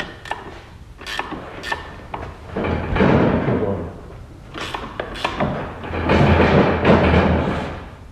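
Hand-tool work on a rubber track kit's tension adjuster as it is loosened slightly: a few sharp metal clicks and clinks in the first two seconds, then two longer stretches of rough handling noise of a second or two each.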